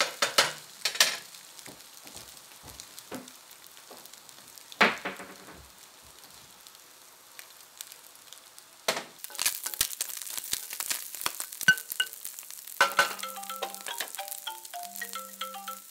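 Scrambled eggs sizzling in a nonstick frying pan as they are stirred, with short scrapes and clicks of the utensil on the pan and a louder clatter about five seconds in. Near the end a smartphone starts ringing, a melody of short tones, with two buzzes of its vibration underneath.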